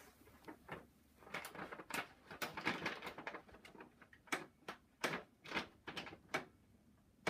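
Irregular light clicks and rustling as the Brother Knitleader's feed knob is turned by hand and the rolled pattern sheet feeds into the sheet guides until it catches.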